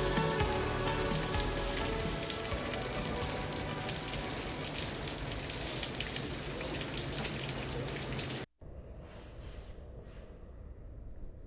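Steady rain hiss with the end of a song fading out under it. About eight seconds in it cuts off sharply to a quieter, duller recording with a few soft puffs of noise.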